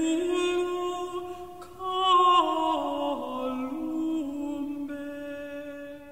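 A single voice singing a slow, unaccompanied chant melody in long held notes, dying away near the end.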